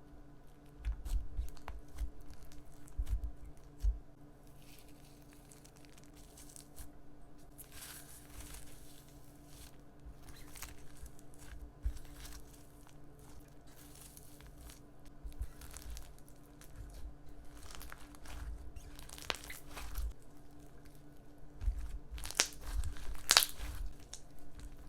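Hands pressing and kneading a crunchy textured popcorn slime. It gives irregular crackles and pops with soft dull thumps, and the crackling grows denser and louder near the end.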